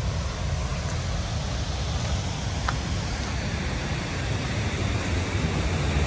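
Steady rush of high snowmelt runoff pouring through a dam's spillway, with a heavy low rumble underneath.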